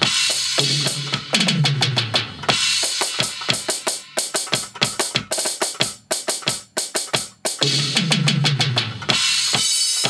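Drum-kit samples played live with sticks on a Roland SPD-SX sampling pad: a continuous pattern of kick, snare and cymbal hits. Twice, about a second in and again near the end, a run of pitched drum hits falls in pitch.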